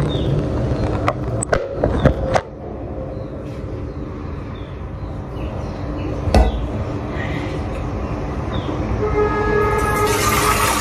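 Knocks and clatter of things being handled on a kitchen counter over a steady low hum, several in the first couple of seconds and one more about six seconds in. A rushing hiss comes in near the end.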